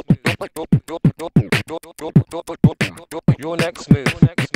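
Hip-hop intro sting of fast beatboxed vocal percussion, kick-drum-like booms and snappy hits several a second, cutting off suddenly near the end.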